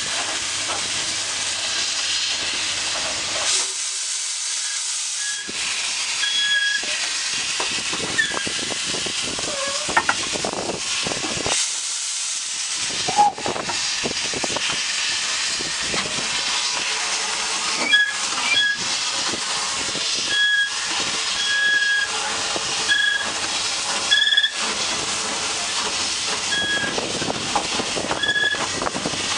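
Peckett No. 1438 steam locomotive on the move, heard from the brakevan behind it: a steady hiss of steam with scattered clicks. About two-thirds of the way through, short high squeals start, repeating every second or two.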